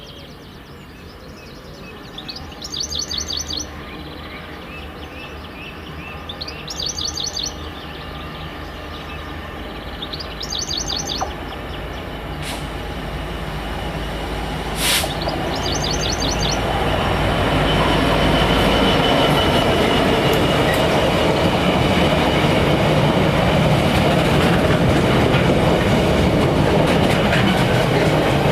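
A diesel-hauled train approaching and passing, its noise growing steadily louder from about eight seconds in and staying loud over the last ten seconds. A bird calls in short, quickly repeated high trills four times in the first half.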